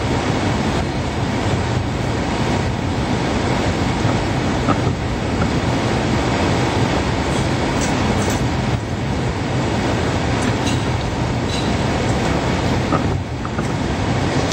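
Wheeled excavator's diesel engine running steadily under load as it moves its boom and slews, with a few brief high squeaks.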